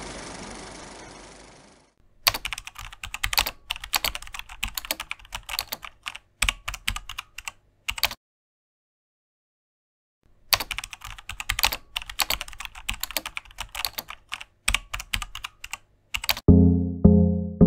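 Typing sound effect: rapid clicking of keys in two runs of about six seconds each, with about two seconds of silence between them. A steady noise fades out over the first two seconds, and music with deep notes comes in near the end.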